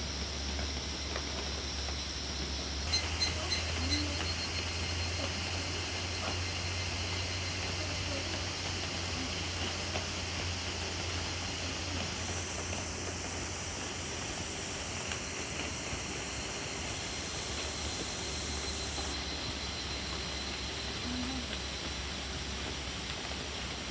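Steady rain falling in woodland, picked up by an iPad's built-in microphone, over a low hum. About three seconds in come four quick, sharp pips in a row.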